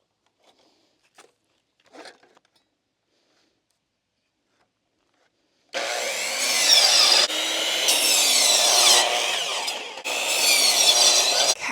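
A few faint taps, then about six seconds in a power saw starts cutting through wood. The cut runs on loudly with two brief dips and stops just at the end.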